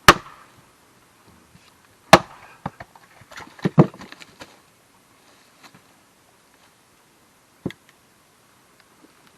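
Axe chopping into a firewood block: three hard strikes about two seconds apart, with a cluster of smaller knocks and clatter around the third, then one lighter knock later on.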